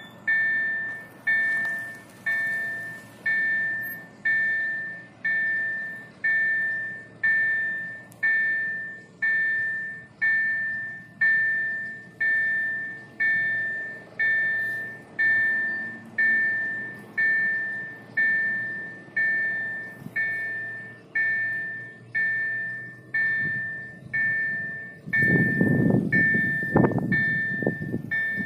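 Automatic level-crossing warning bell striking about once a second, each stroke ringing at one steady pitch and fading before the next. Near the end a loud low rumble joins it.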